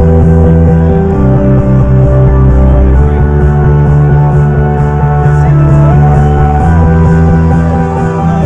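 Loud trance music from a DJ set over a club sound system: sustained synth chords that change every few seconds over a heavy bass, with a light high tick about twice a second.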